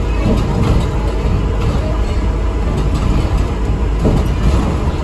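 ADL Enviro 400 MMC double-decker bus heard from inside while driving: a steady low engine and road rumble with a few light rattles.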